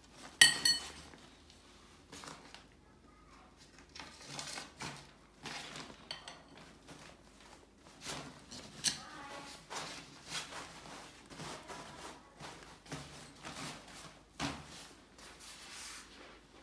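Portacot support tubes knocking and clinking as they are slid into the nylon fabric pockets of the base, with fabric rustling between. A sharp, ringing clink comes about half a second in, and a few more knocks follow irregularly.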